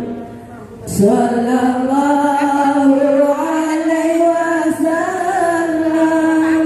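Voices chanting a sholawat, the Islamic blessing on the Prophet Muhammad, in long, drawn-out notes. A brief break comes before the next line begins about a second in with an upward slide in pitch.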